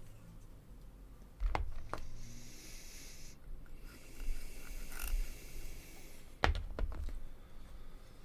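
Light handling sounds of small plastic model parts being fitted together: a pair of sharp clicks about a second and a half in, a brief rustle, then another pair of clicks near the end.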